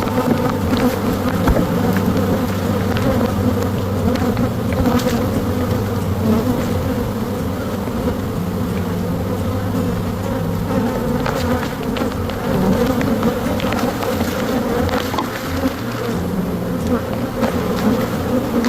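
Honey bees buzzing in a steady, dense hum around an open hive, with a few faint clicks.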